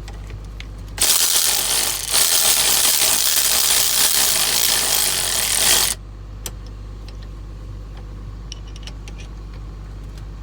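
A loud, steady hissing rush lasting about five seconds, with a brief break about a second after it starts and an abrupt stop. Light metallic clicks and taps of small tools being handled come before and after it.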